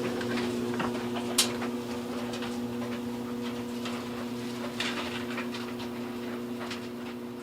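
Clothes dryer running: a steady motor hum with scattered clicks and knocks from the turning drum, the sharpest about one and a half seconds in and a short cluster about five seconds in.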